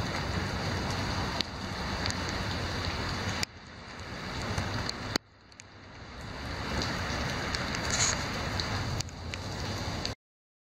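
Steady outdoor rain noise with a few scattered clicks. It dips sharply twice and swells back, then cuts off just before the end.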